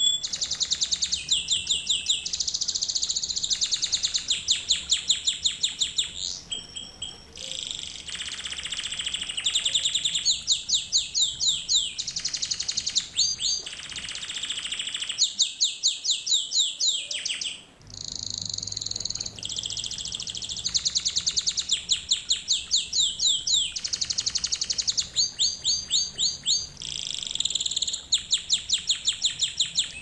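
Domestic canary singing a long song of trills and rolls: phrase after phrase of quickly repeated, sliding high notes, with brief breaks between phrases.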